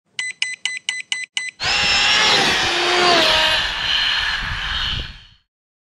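Intro sound effect: six quick electronic beeps, about four a second, then a loud motor-like whir whose pitch rises and falls before it fades out near the end.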